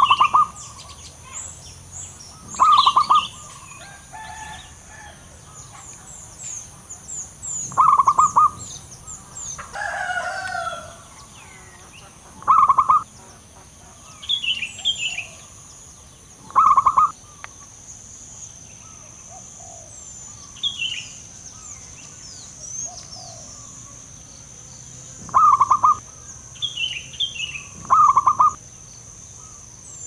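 Male zebra dove cooing: seven short, rapidly pulsed trilled phrases a few seconds apart. Softer chirps of other small birds sound between them.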